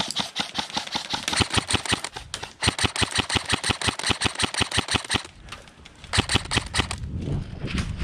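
Airsoft electric M4 rifle, a Lancer Tactical Gen 3, firing on full auto: long bursts of rapid clattering shots with short breaks a little past two seconds and about five seconds in, then a final short burst. Near the end the shooting stops and a low rumble takes over.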